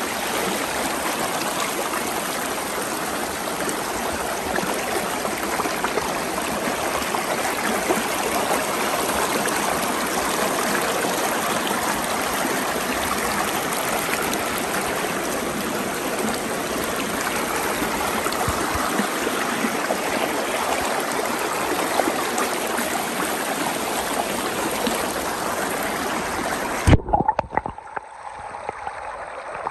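Shallow river water rushing and gurgling over rocks close to the microphone, loud and steady. About 27 seconds in there is a sudden knock, and the sound turns muffled and quieter as the camera goes under the water.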